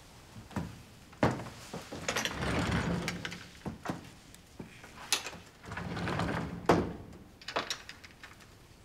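Footsteps and rustling clothing on a wooden floor, and a wooden lattice sliding door being slid, with several sharp knocks between longer stretches of rustling.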